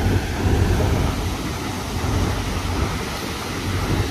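Steady low rumble and rushing water on the open deck of a river cruise boat beside a weir: water pouring over the weir close alongside, under the run of the boat.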